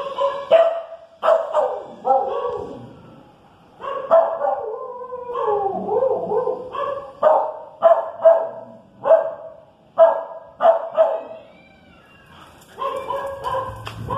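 Dogs barking excitedly in a rapid run of sharp barks, with a drawn-out call with bending pitch midway. They pause briefly and start again near the end, set off by a cat sound played from a phone app.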